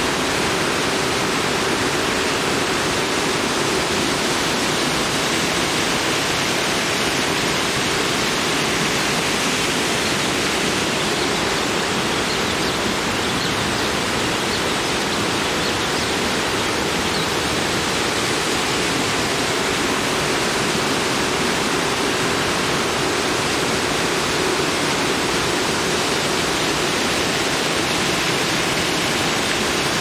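Waterfall and cascading stream water rushing steadily, an even, unbroken hiss.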